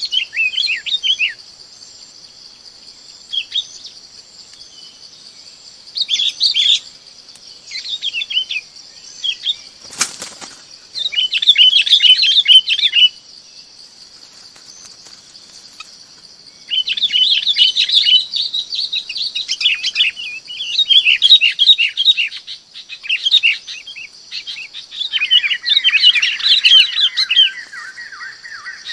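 Bông lau bulbuls calling in repeated bursts of quick chattering notes: lure calls used to draw a flock. Behind them runs a steady high buzz, and there is a single sharp click about ten seconds in.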